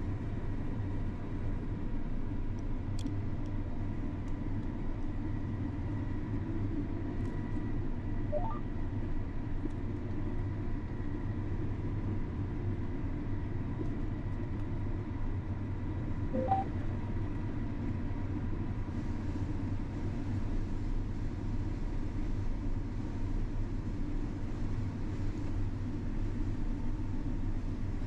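John Deere combine harvester running under load while cutting soybeans, heard from inside the cab: a steady low rumble with a faint constant whine over it.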